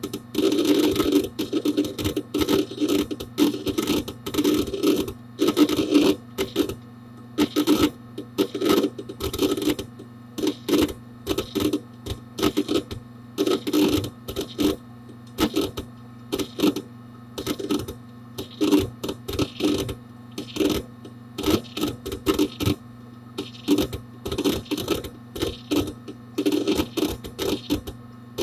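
Hard disk drive of a Dell Dimension 4700 desktop computer, heard from inside the case, busy with disk activity: irregular bursts of rapid seek clicking and chatter over a steady hum.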